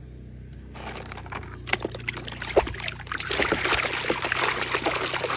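A hand swishing and scrubbing a plastic toy vehicle in a basin of muddy water. The sloshing and splashing starts about two seconds in and grows busier, with a few small knocks.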